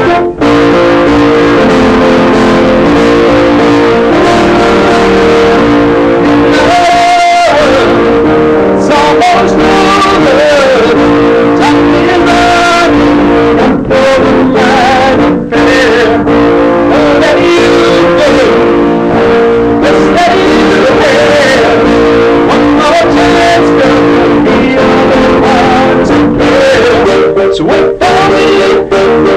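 A man singing a pop-song cover over a sustained instrumental accompaniment, recorded very loud and heavily distorted by the microphone, which gives it a buzzing, electric-guitar-like edge.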